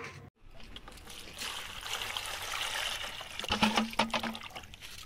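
Water trickling into a plastic basin of potatoes for about two seconds, then splashing and sloshing as hands rub the potatoes clean in the water.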